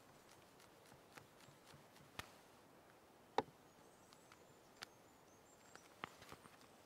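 Near silence broken by scattered sharp clicks and taps of a steel palette knife against an oil painting panel, the loudest about halfway through.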